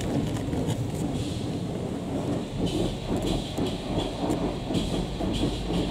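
Aquatus Prime combination car wash running its touchless programme, heard from inside the car's cabin: a steady low rumble of water jets and machinery, with scattered ticks and hiss of spray hitting the glass, more of them in the second half.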